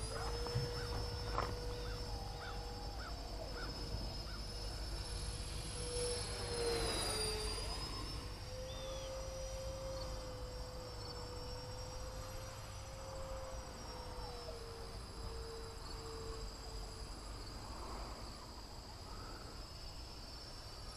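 Twin 64 mm electric ducted fans of an E-flite A-10 Thunderbolt II RC jet whining steadily in flight, the pitch wavering and dipping briefly about seven seconds in.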